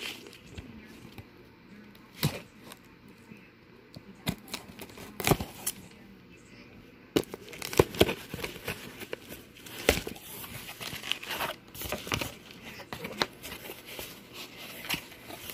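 Paper wrapping and a cardboard mailing box being torn open and crinkled by hand: irregular rustles and sharp crackles, sparse at first and much busier from about halfway through.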